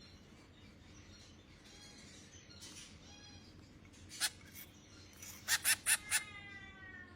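Baby finch begging to be fed. Faint chirps at first, then one loud cheep about four seconds in, then a quick run of about five loud, harsh cheeps near the end that trails into a short series of falling thin notes.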